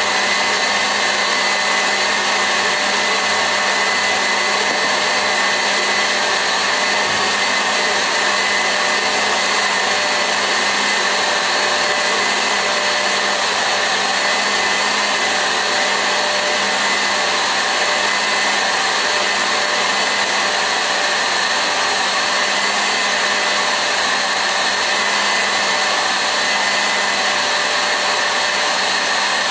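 KitchenAid Artisan stand mixer running steadily with its wire whisk beating eggs and sugar in the steel bowl: a constant motor whine that holds the same pitch throughout.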